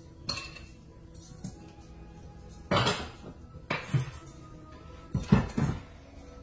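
Silicone spatula moving shrimp around in an enamelled pan, with several clattering knocks and scrapes against the pan in short clusters, the loudest a little after five seconds in.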